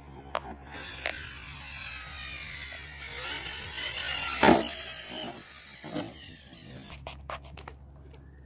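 Arrma Kraton RC monster truck's brushless electric motor whining hard, its pitch sliding up and down as the truck races in and launches off a jump, growing louder. About four and a half seconds in it lands with a loud thump, and a second, weaker thud follows about a second later. A few small clicks come near the end.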